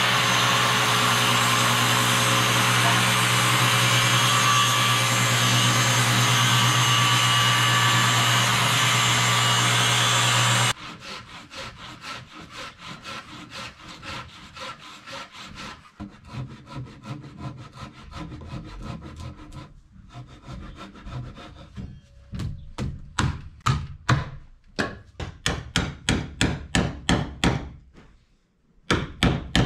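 A power tool runs steadily for the first ten seconds or so with a low hum, then cuts off abruptly. A hand saw follows, cutting wood in rhythmic back-and-forth strokes that grow louder to about two strokes a second near the end.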